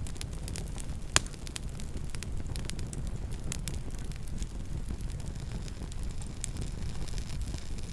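Campfire crackling: a steady run of small wood pops and snaps over a low rumble, with one sharper, louder pop about a second in.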